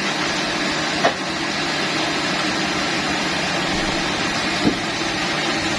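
Sawmill machinery running steadily with an even mechanical hum, with two short knocks: one about a second in and one near the end.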